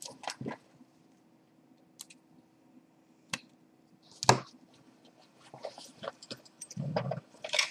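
Small objects being handled and set down on a hard surface: a few scattered sharp clicks and knocks, the loudest about four seconds in, over a faint steady hum.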